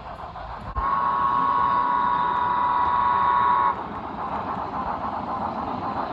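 HO scale model locomotive's sound-system horn sounding one steady blast of about three seconds, starting about a second in and cutting off sharply.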